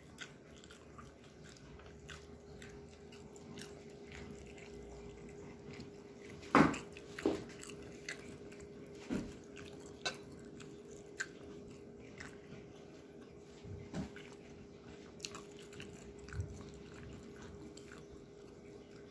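Crisp fried lumpia (spring rolls) being bitten and chewed: scattered short crunches, the loudest about six and a half seconds in, over a steady low hum.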